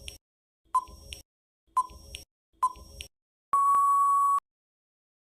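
Countdown-timer sound effect: four short electronic beeps about a second apart, then one longer steady beep at the same pitch near the end, which signals that time is up.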